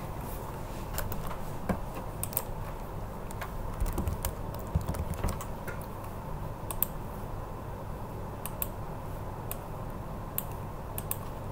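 Scattered, irregular clicks of a computer keyboard being tapped, a dozen or more sharp ticks with uneven gaps, over a steady low background hum.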